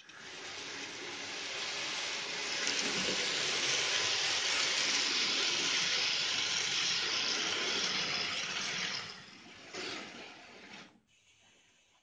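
N gauge model train running past on the track: a steady rushing whirr of wheels and motor that swells over the first few seconds, holds loudest through the middle, then fades and cuts off about eleven seconds in.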